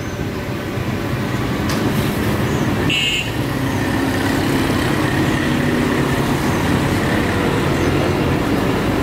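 A motor vehicle engine running steadily close by, a continuous low rumble of street traffic, with a brief high squeak about three seconds in.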